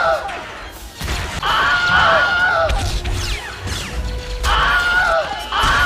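The Wilhelm scream stock sound effect, the same man's yell played over and over: about three times, each lasting roughly a second and dropping in pitch at the end. It sits over film score music and crashes.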